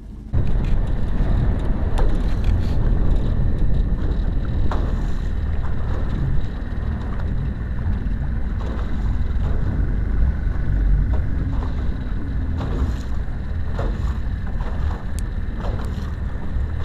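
Small boat's outboard motor running steadily across open water, with a low rumble and a thin steady whine. Wind buffets the microphone and there are occasional knocks of the hull on the waves.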